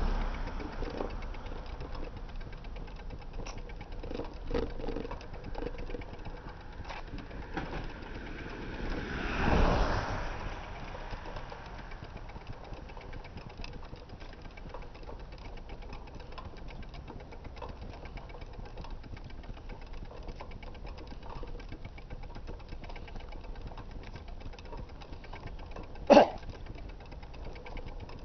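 Bicycle freewheel ticking rapidly and steadily as the bike rolls without pedalling. A vehicle passes about ten seconds in, and a single sharp clunk comes near the end.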